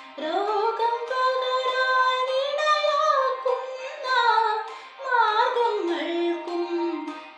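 A girl singing a melody solo, holding long notes that glide up and down between pitches, with a short pause for breath about five seconds in and a low held note near the end.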